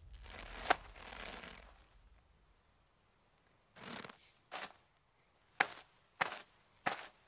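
Animated-cartoon sound effects: a rustling swish with a sharp click about half a second in, then after a quiet spell a few soft steps, turning into quick, evenly spaced footsteps, about three every two seconds, as the cartoon bird runs, over a faint high steady tone.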